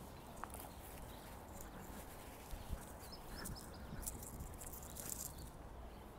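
Quiet suburban street ambience: a low steady background rumble, a walker's soft footsteps on tarmac, and a few short bird chirps about halfway through.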